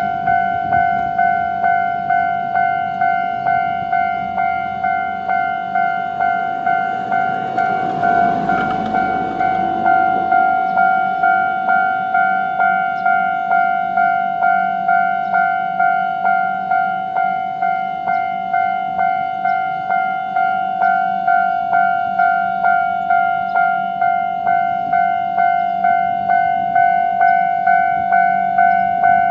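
Japanese railway level-crossing alarm ringing steadily, an electronic two-tone ding repeating about twice a second. About eight seconds in, a Choshi Electric Railway 2000-series train runs briefly through the crossing with a rush of wheel noise under the alarm.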